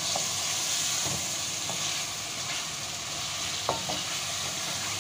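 Chicken pieces sizzling in hot oil in a metal karahi as they are fried with onions and ginger-garlic paste, stirred with a plastic spatula that scrapes and knocks against the pan. A sharper knock with a brief ring comes a little over three and a half seconds in.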